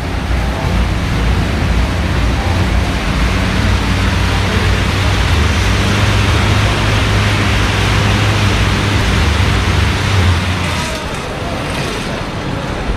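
Air bike's fan whooshing steadily as it is pedalled hard, with a low hum under the rush of air; the rush eases about eleven seconds in.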